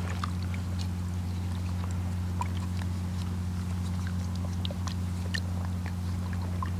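Faint, scattered small splashes and drips as hands rinse dirt off a plaster-of-Paris cast in a bucket of water, over a steady low hum.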